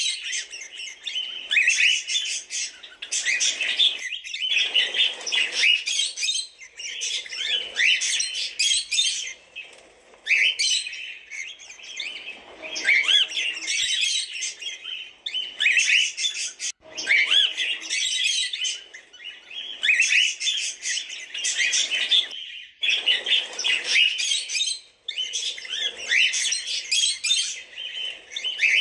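Cockatiels chirping in a steady stream of short, high chirps and calls. They come in runs of a second or two, with brief pauses between.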